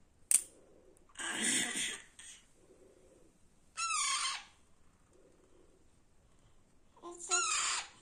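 Young Alexandrine parakeet giving harsh, raspy squawks in three bouts: about a second in, around four seconds, and near the end. A sharp click comes just before the first bout.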